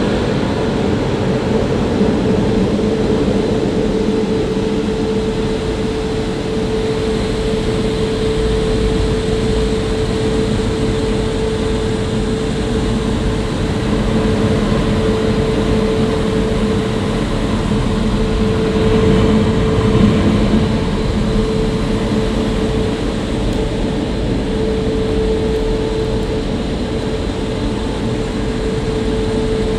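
Automatic car wash gantry machinery running through its touchless cycle, heard from inside the car's cabin: a steady rushing noise with a constant hum.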